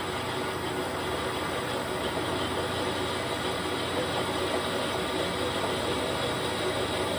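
Mazak lathe running steadily, a constant machine hum with faint steady tones and no sharp knocks.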